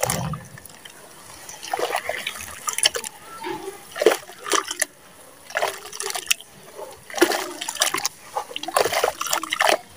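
Hands squeezing and kneading thick wet mud in a basin of muddy water: irregular wet squelches and splashes, coming in short clusters about once a second.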